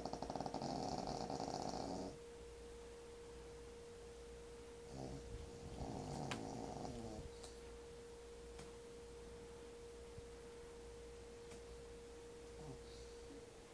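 A sleeping pet snoring: a loud rough snore that stops about two seconds in, then a softer one about five seconds in, lasting a couple of seconds. A steady hum-like tone runs underneath and fades out at the very end.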